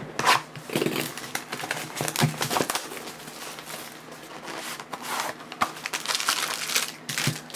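Plastic wrapping on a trading card box being crinkled and torn open, with irregular rustling and crackling throughout.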